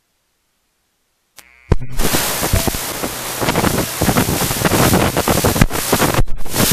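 Dead silence, then a click about a second and a half in, followed by a loud rushing noise that rises and falls unevenly, typical of wind or static on the audio feed.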